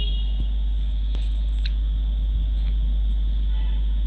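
A steady low hum, with a couple of faint soft clicks about a second and a half in.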